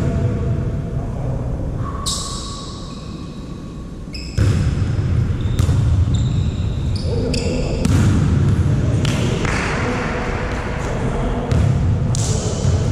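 Volleyball play in an echoing sports hall: about seven sharp slaps of the ball being struck and hitting the floor, with short high squeaks of court shoes on the floor after several of them.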